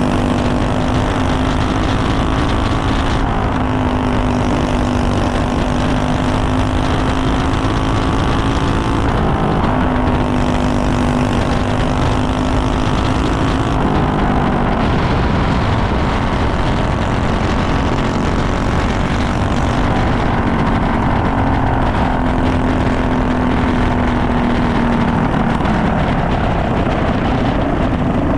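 Racing kart engine heard from on board, running hard and steady at speed, its pitch dipping briefly a few times and climbing back.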